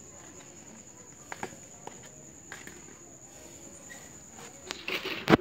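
Cricket trilling steadily at a high pitch, stopping shortly before the end, with a few faint taps. Near the end a brief rustle and then a sharp knock, the loudest sound.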